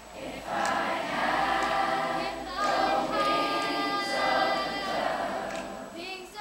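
Large middle-school children's choir singing in parts, swelling in about half a second in and holding long notes.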